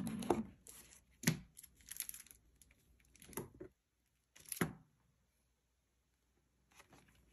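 Sticker sheets and a clear plastic case being handled: about five short rustles and crinkles, then quiet for a couple of seconds near the end.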